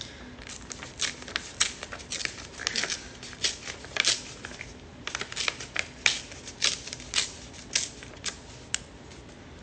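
A sheet of plain printer-type paper crinkling and crackling in hands as it is handled and folded, in irregular runs of sharp crackles that thin out near the end. It is ordinary paper being shaped in place of rolling paper.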